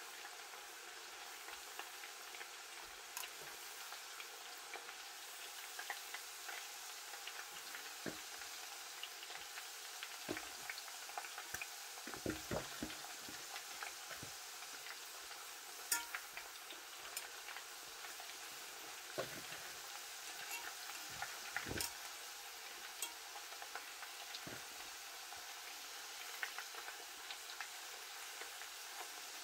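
Plantain slices deep-frying in hot oil, a steady sizzle with small pops. Sharp clicks and knocks come now and then from a metal fork turning the slices against the pot, bunched about twelve seconds in and again around twenty seconds.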